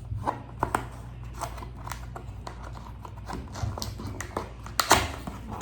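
Cardboard product box and its packaging being handled and opened: scattered taps, clicks and rustles, with a louder burst of noise about five seconds in.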